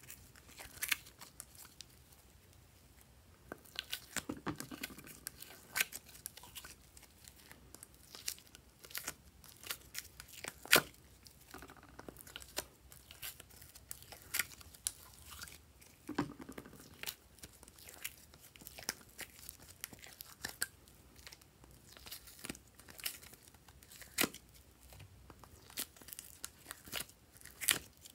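Thick slime being pulled out of the cells of a clear plastic grid case by hand: irregular sticky tearing and crackling as it pulls away, mixed with sharp clicks and taps of the plastic case.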